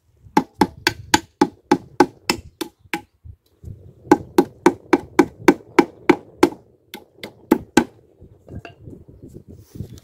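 Hammer driving a nail into the wooden roof of a birdhouse: two runs of quick, even strikes, about three a second, with a pause of about a second and a half between them.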